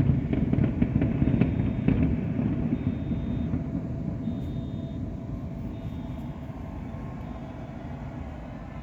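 Fireworks display: a dense low rumble of aerial shell bursts, with crackling reports in the first two seconds, then the rumble slowly dies away.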